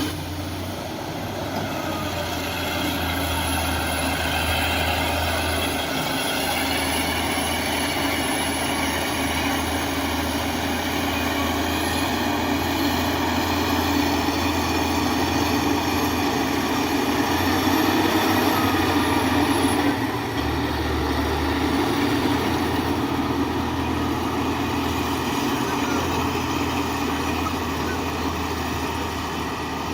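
Heavy diesel engine of earthmoving machinery running steadily with a continuous drone, swelling slightly about two-thirds of the way through.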